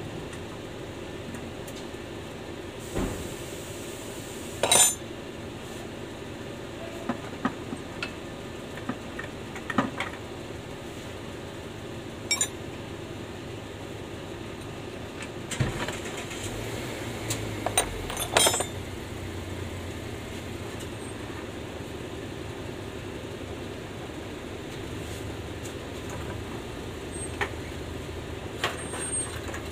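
Scattered metallic clinks and knocks of hand tools on steel parts during work on a van's transmission and clutch, over a steady low hum. The sharpest knocks come about five seconds in and near the middle.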